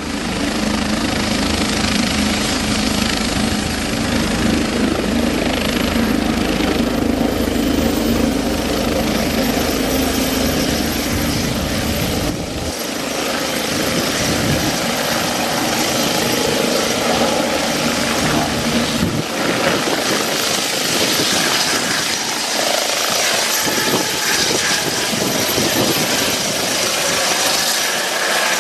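Bell 429 twin-turbine helicopter running close by, a steady dense rotor and turbine noise; its low rumble thins out about halfway through.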